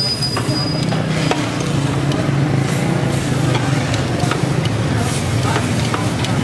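Flat metal spatulas scraping and clacking on a steel griddle as barbecued chicken is chopped, giving scattered sharp clacks over a steady low din.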